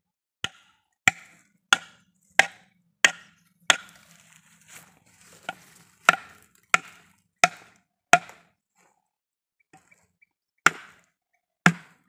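A large knife blade striking a terracotta clay pot: a dozen or so sharp knocks about one every two-thirds of a second, with two pauses. The pot is being cracked open to get at the bee colony inside so it can be moved into a hive box.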